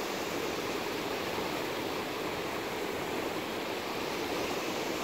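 Steady rushing of a river in flood, a fast, high, muddy current pouring past.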